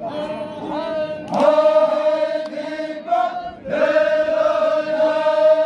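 Zikri chogan devotional chant: a singer's voice holds two long, high notes, the first starting about a second in and the second about halfway through, with a short break between them.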